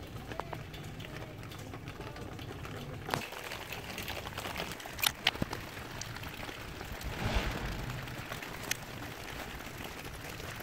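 Hand work on an engine: a few sharp clicks and taps, and a short scrubbing hiss about seven seconds in.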